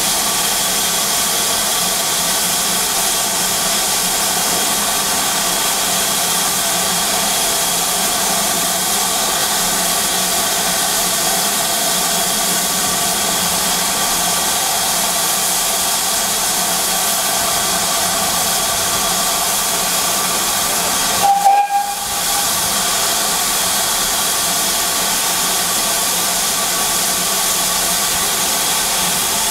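Steam hissing steadily and loudly from a standing GWR 2800-class 2-8-0 steam locomotive. The hiss dips briefly, with a short tone, about three-quarters of the way through.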